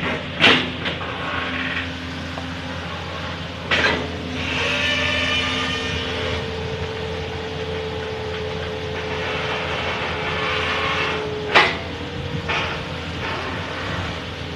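Amphibious long-reach excavator running steadily while it digs mud in a creek, a constant engine hum with a steady whine over it. Three sharp knocks stand out, about half a second in, near four seconds and near twelve seconds.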